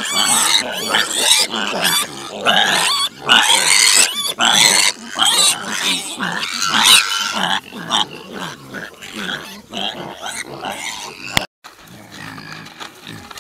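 Kune Kune piglets squealing and grunting loudly as they jostle each other over food. After about seven seconds the calls turn softer, with a brief break near the end.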